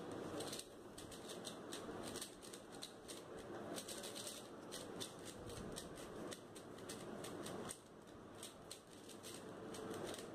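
A GuoGuan YueXiao 3x3 speedcube being turned fast by hand during a blindfolded solve. The plastic layers click in quick runs of turns, each run separated by short pauses.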